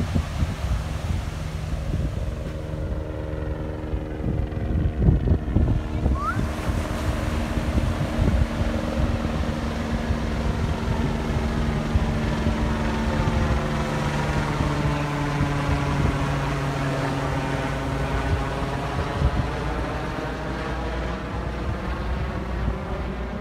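Small surf breaking and washing up the beach, with wind buffeting the microphone. Under it runs the steady drone of an engine.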